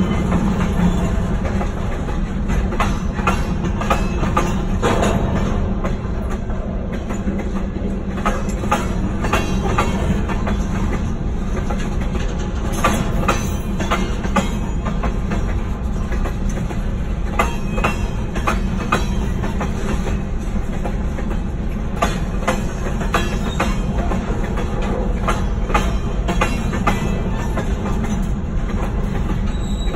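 Freight cars (covered hoppers and boxcars) being shoved across a road crossing: a steady low rumble of rolling wheels with irregular, sharp clacks as the wheels pass over rail joints.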